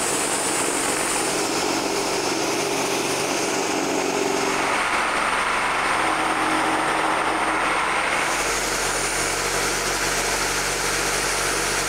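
Corded Milwaukee Sawzall reciprocating saw with a long wood-cutting blade running steadily, cutting lengthwise through a thick cherry board in a table-saw kerf to resaw it. Its tone shifts a little about four and a half seconds in and again about eight seconds in.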